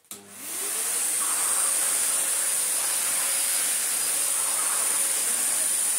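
Miele Medicair Mini 1600 vacuum cleaner switched on, its motor spinning up with a rising whine, then running steadily with a loud, high airflow hiss through a floor head on carpet.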